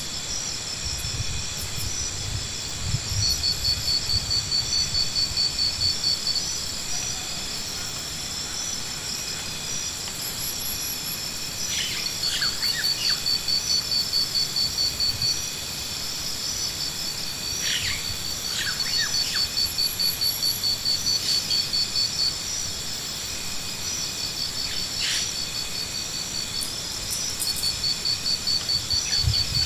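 Insects trilling: a fast pulsing high trill that comes and goes in bouts of a few seconds, over a steady high-pitched whine. A few short bird calls are heard.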